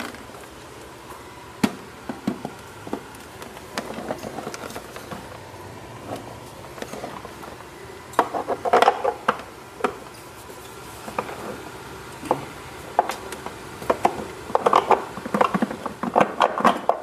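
Knocks, clicks and rattles of the FIAC WallAir compressor's plastic housing being lifted onto and fitted to its wall bracket, in short bunches of clatter around the middle and again near the end.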